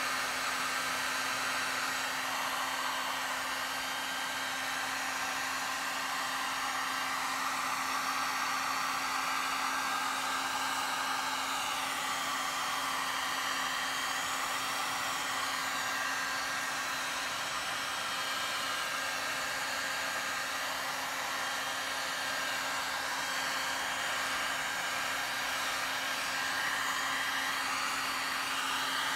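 Heat gun running steadily, its fan blowing hot air onto an acoustic guitar side clamped in a bending form to heat and set the bend, with a steady motor hum under the rush of air.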